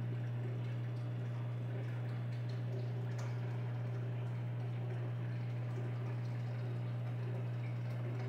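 Steady low hum of the tank's water pump, with a faint trickle and bubbling of water.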